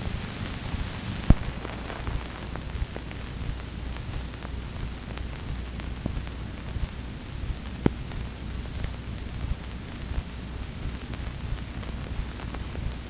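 Old film soundtrack noise with no programme sound: a steady hiss and low hum, dotted with small clicks and pops, one sharp pop about a second in.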